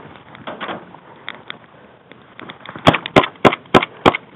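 Airsoft pistol firing five quick shots, each a sharp crack about a third of a second apart, in the second half. Quieter knocks and rustles come before them.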